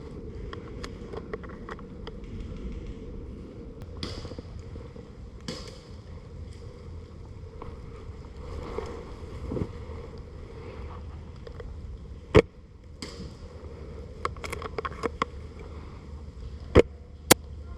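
Scattered airsoft gunfire: sharp single cracks, the loudest about twelve seconds in and two more near the end, with lighter ticks in between, over a steady outdoor rumble.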